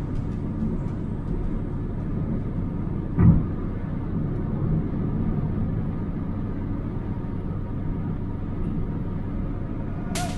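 Car on the move: a steady low rumble of engine and road noise, with one short thump about three seconds in.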